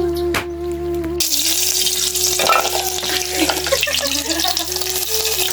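Food sizzling in hot oil in a pan, a dense crackling hiss that starts abruptly about a second in, under background music with a simple melody.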